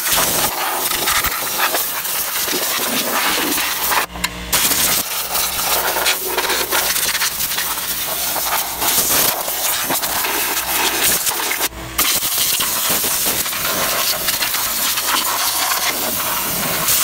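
Compressed air blasting through a long wand air nozzle, a loud steady hiss that cuts out briefly twice, about four seconds in and again near twelve seconds. It is blowing loose rust and scale out of a vehicle's frame rails and underbody cavities.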